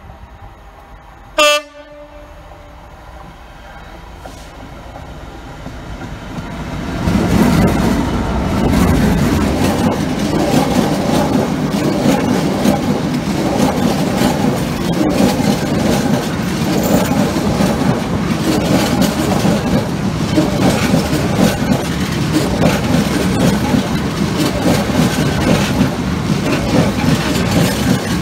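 A Class 66 diesel freight locomotive gives one short horn blast about a second and a half in. Its engine noise then builds as it draws near and passes, and a long train of box wagons follows, rumbling and clattering over the rail joints.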